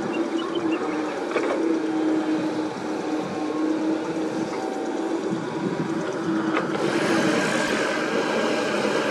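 Komatsu PC78US mini excavator's diesel engine running steadily with a constant hum as it digs soil, with a couple of faint clicks of the working gear. About seven seconds in the sound grows brighter and hissier.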